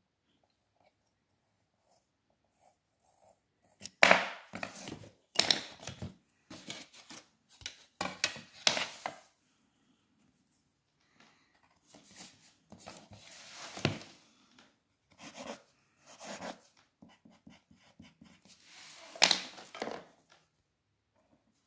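Drawing tools being worked on paper on a drawing board: a plastic set square and a long ruler slid and set down, with pencil strokes, in irregular bursts of scraping and knocking. Nearly quiet for about the first four seconds, with the loudest knocks about four, fourteen and nineteen seconds in.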